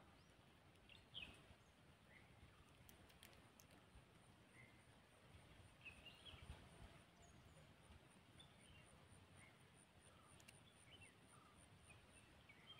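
Near silence: faint riverside ambience with scattered short bird chirps, and a faint high rapid pulsing in the second half.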